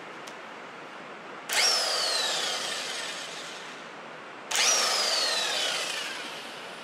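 Two short bursts of a cordless power tool, about three seconds apart, driving the centre bolt of a flywheel puller on an outboard's flywheel. Each starts suddenly with a high whine that falls in pitch and fades over about a second and a half; the flywheel has not yet broken free.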